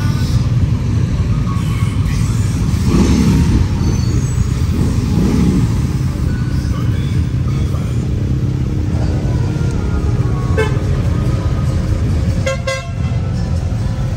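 A group of big touring and adventure motorcycle engines running together in a steady low rumble, with a few swells a few seconds in. A horn toots briefly near the end.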